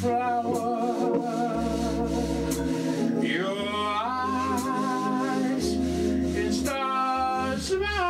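A man sings long held notes with vibrato, sliding up into new notes twice, over a Hammond organ playing sustained chords and a walking line of low bass notes in a slow jazz ballad.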